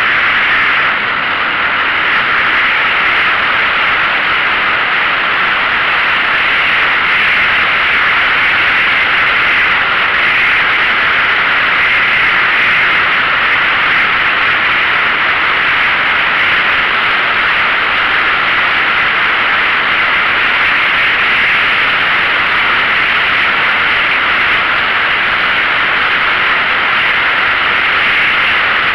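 Steady, loud rushing noise of a vehicle travelling along a road: wind and road noise on the moving camera, with no engine note or separate sounds standing out.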